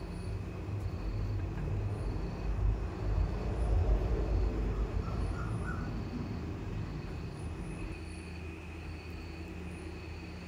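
Steady low rumble that swells about four seconds in and then eases off, with a faint steady high whine and faint short high notes repeating at regular intervals above it.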